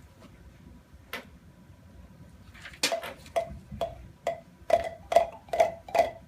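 Palm pipe struck against the palm, popping out one short pitched note: a single strike, then a run of about eight strikes roughly twice a second, all on the same note.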